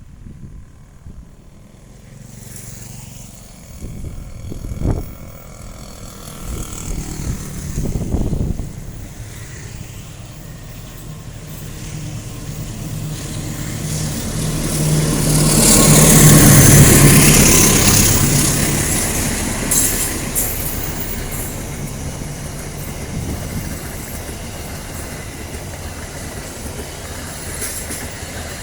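Diesel-hauled passenger train passing close by. The locomotive's engine swells to its loudest about two-thirds of the way through, then the carriages roll past with wheel clicks on the rail joints. Two short low thuds come about five and eight seconds in.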